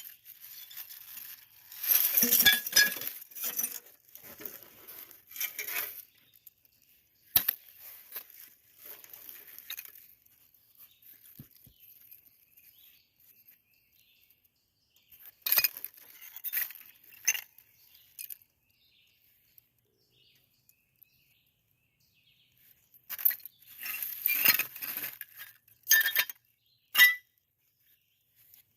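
Glass and other junk clinking and scraping as it is dug through and handled in an old dump, in several bursts of sharp clinks separated by quiet spells.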